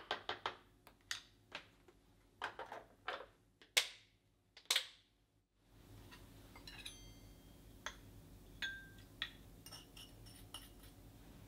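A wooden spoon stirring and scraping a thick chili-and-soy seasoning in a glass container, in a quick run of scraping strokes, the loudest two about four and five seconds in. After a pause, a spoon lightly clinks against a small glass bowl as seasoning goes in.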